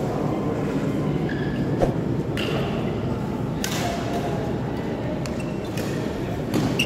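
Badminton rally: rackets striking the shuttlecock, a few sharp hits a second or two apart, over the steady background noise of the hall.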